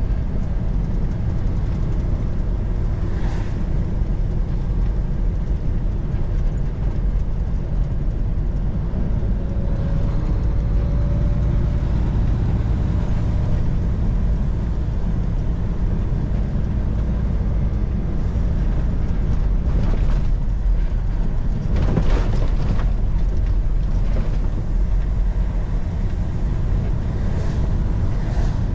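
Semi truck driving: a steady low drone of engine and road noise, with a few brief louder swishes along the way.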